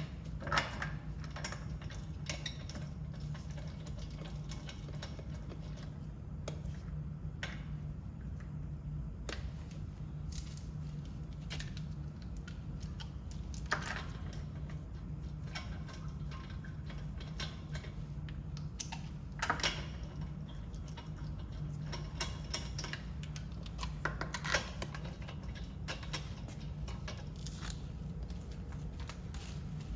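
Hand tools and small metal parts clinking and clicking irregularly, with a few louder knocks, over a steady low hum.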